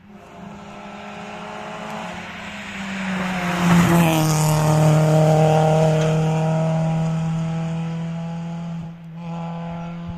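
A rally car's engine at high revs as it passes at speed. The engine grows louder, drops in pitch about four seconds in, then holds a steady high-revving note that slowly fades.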